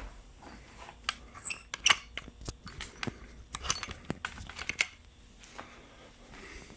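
A scatter of small clicks, taps and knocks, most of them in the first five seconds: handling noise as the camera is taken off its mount.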